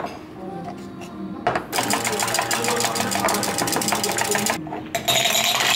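Handheld battery-powered milk frother whirring in a glass measuring jug of espresso for about three seconds, then running again briefly near the end.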